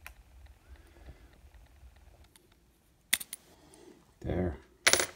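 Handling noise from a small screwdriver and a model locomotive's tender: faint rubbing at first, then a few sharp clicks and knocks in the last two seconds, the loudest near the end.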